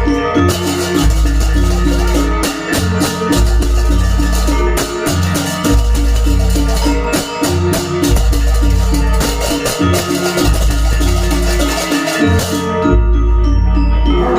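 Gamelan music for a Janger dance: metal-keyed instruments play a fast, repeating figure over drums and long, deep low notes that come and go.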